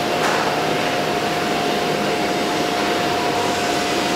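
Thermoforming machine running: a steady rush of air, like a blower, with a constant whine held through it.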